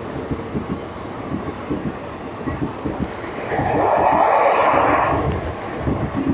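Passenger coaches of an Indian Railways express running through a station without stopping: the wheels clack over the rail joints in a rapid, uneven stream of clicks over a steady rumble. About halfway through there is a louder rushing swell.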